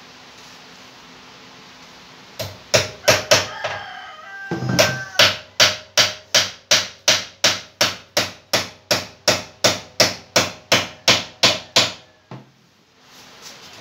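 Hammer blows on a wooden kitchen cabinet: a quick run of about four strikes, then a steady run of about eighteen at roughly two and a half a second, stopping about twelve seconds in. A rooster crows once between the two runs.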